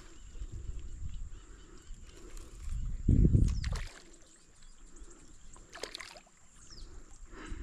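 Outdoor ambience with a loud low rumble for about a second, around three seconds in, a few short sharp high sounds, and a faint steady high whine.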